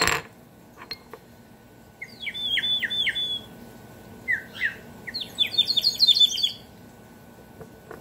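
Water-filled ceramic bird whistle blown in two warbling bursts of quick falling chirps: a short one about two seconds in, and a longer, faster trill about four seconds in. A short knock sounds right at the start.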